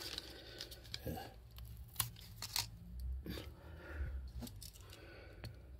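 A cardboard matchbox and a wooden match being handled: scattered small clicks and brief scrapes as a match is slid out of the box and taken between the fingers.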